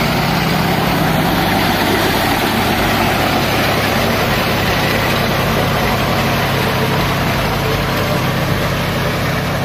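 John Deere diesel tractor engine running steadily under load, driving a PTO rotavator that churns the mud and water of a flooded paddy field during puddling.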